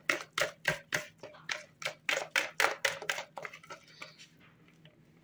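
A whisk beats thick pancake batter in a bowl, ticking against the bowl about three to four times a second in a steady rhythm. The strokes fade out and stop about three and a half seconds in.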